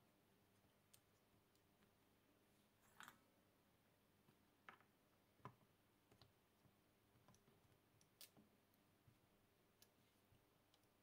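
Faint, scattered small clicks of metal tweezers and a soldering iron tip touching a metal coin-cell battery holder on a circuit board while it is soldered in place, with the strongest clicks about three, five and a half, and eight seconds in.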